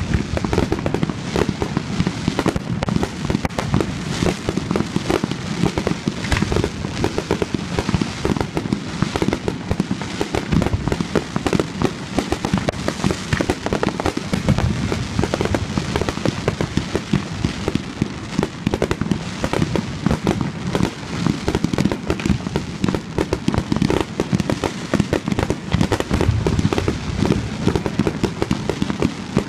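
Fireworks display in a continuous barrage: aerial shells bursting in rapid, overlapping bangs with no pause.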